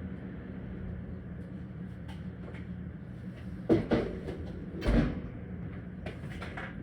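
Kitchen clatter: two solid knocks about a second apart, then a few lighter clicks, over a steady low hum.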